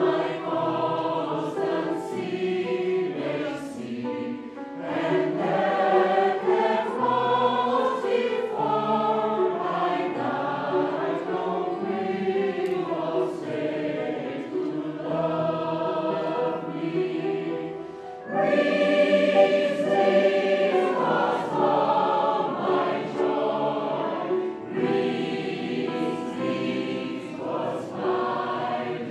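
Mixed choir of women's and men's voices singing in harmony. There is a short lull about two-thirds of the way through, then the voices come back louder.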